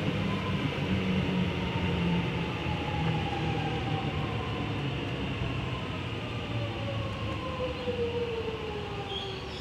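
Alstom X'Trapolis 100 electric suburban train running with a steady low rumble, and a whine that falls slowly in pitch.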